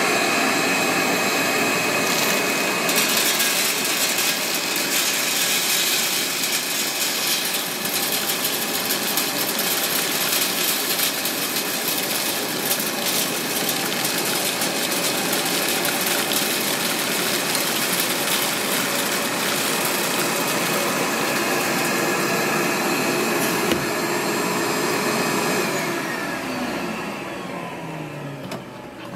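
Shop vac running at full suction, its air bleed closed, pulling air through a homemade wooden zig-zag seed aspirator with a steady whine and fine ticking of sunflower seeds through the channel. Near the end it is switched off and winds down, its pitch falling.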